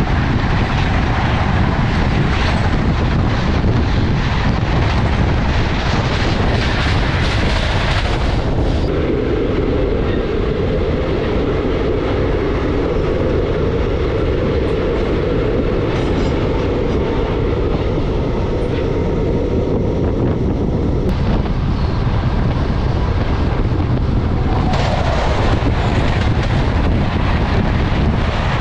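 Rush and rattle of trains passing close on the next track while the train is moving: passenger coaches, then from about eight seconds in a long goods train of covered wagons with a steadier drone, then passenger coaches again from about twenty-five seconds in.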